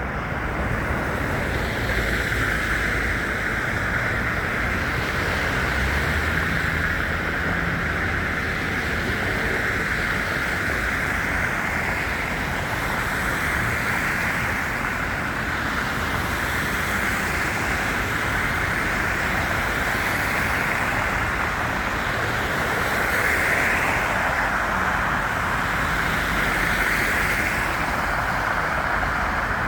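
Steady rushing outdoor noise of city traffic, with wind buffeting the phone's microphone, unchanging throughout.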